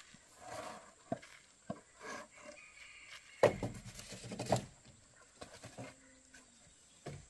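Scattered wooden knocks and scuffs from a stick and bamboo fence rails in a pig pen, with a louder clatter lasting about a second midway. A black pig grunts now and then.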